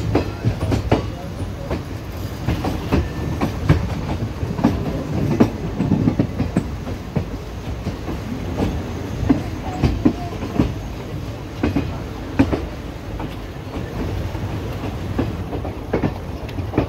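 Passenger train coaches running at speed, heard from an open coach door: a steady rumble of the wheels on the rails, broken by irregular clacks and knocks as the wheels pass over rail joints.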